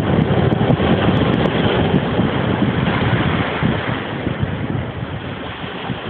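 Ocean surf breaking and washing over rocks and up a sandy beach: a continuous seething wash, loudest at first and easing slightly towards the end. Wind buffets the microphone, adding a gusty low rumble.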